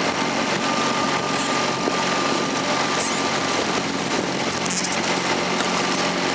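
Small boat's outboard motor running steadily at low speed, a constant engine hum with a steady hiss over it.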